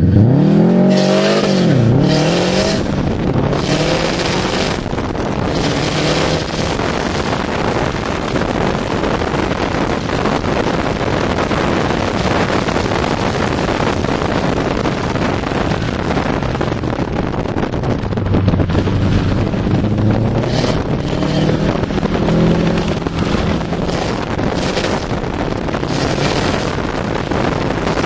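A 2006 Subaru Impreza WRX STi's turbocharged flat-four engine, heard from inside the car at speed, revving up and falling back through gear changes in the first few seconds. After that a loud, steady rush of wind and road noise dominates, with the engine running beneath it and coming through again later on.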